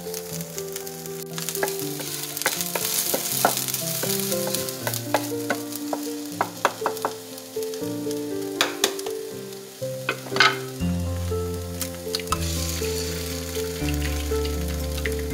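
Chopped green onions sizzling in hot oil in a nonstick frying pan, infusing the oil with onion flavour, with a spatula stirring and clicking against the pan. The scallions are pushed to one side, with a few louder knocks about eight to ten seconds in.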